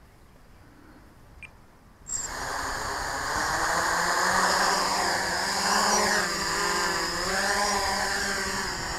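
Quiet for about two seconds, then the quadcopter's four brushless motors and 8-inch two-blade propellers spin up suddenly and run on as it lifts off. It is a steady buzzing whine made of several pitches that waver and shift as the throttle changes.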